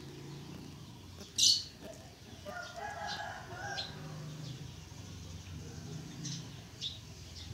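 Water splashing and dripping as handfuls of raw shrimp are lifted out of a basin of wash water into an aluminium colander, with one sharp splash about a second and a half in. A bird calls in the background for about a second, around three seconds in.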